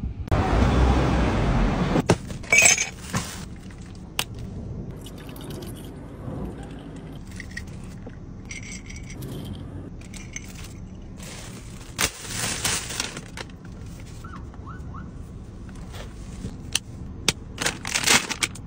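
Food-packaging handling sounds: crinkling plastic bags and cellophane wrap in several separate bursts, with sharp clicks and light clinks between them. A loud rushing noise fills the first two seconds.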